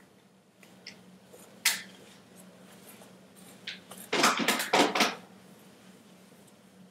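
Handling noise close to the microphone as hands work through the hair. There is a sharp click a little under two seconds in, then a burst of clattery rustling and knocking a little after four seconds, over a faint low hum.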